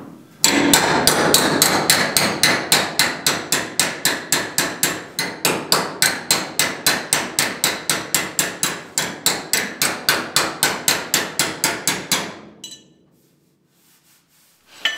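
Body hammer striking a steel car body panel against a hand-held dolly, a fast, even run of sharp metallic strikes at about five a second, reshaping the wheel-arch edge into a tighter corner. The hammering stops about twelve seconds in, and there is a single knock near the end.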